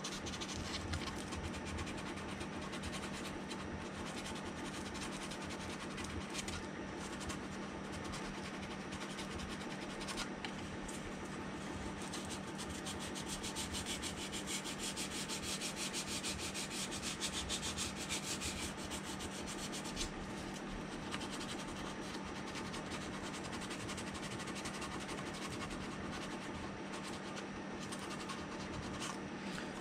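Coarse 180-grit sandpaper rubbed by hand in quick short strokes over filler putty on a plastic model hull, roughing down the puttied seams. The scratching runs on evenly throughout.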